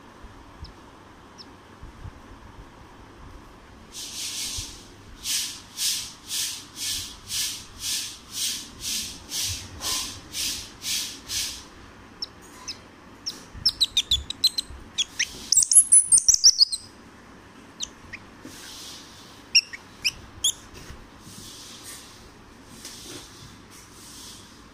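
Squirrel calls: a run of high chirps about two a second, then a burst of rapid, high, sweeping squeaks that is the loudest part, followed by a few fainter chirps near the end.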